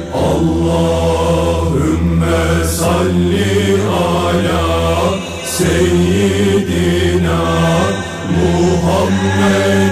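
Islamic devotional chant: a voice sings long, winding lines over a steady low drone, pausing briefly for breath about five seconds in and again about eight seconds in.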